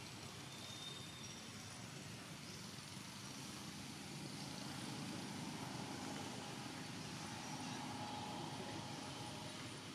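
Distant engine noise as a steady low hum, swelling about four seconds in and easing off near the end.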